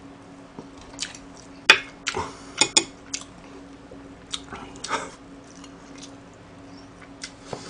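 Chopsticks clicking against dishes and the wet mouth sounds of eating close to the microphone, a scatter of short sharp clicks and smacks, the sharpest about two seconds in. A faint steady low hum runs underneath.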